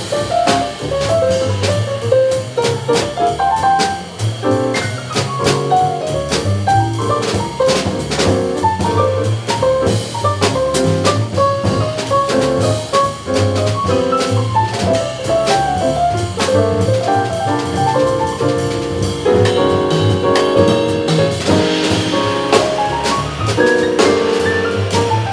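A live jazz trio playing: a keyboard with a piano sound, an upright double bass and a drum kit, with quick melodic runs over a walking bass line and cymbal-driven drums.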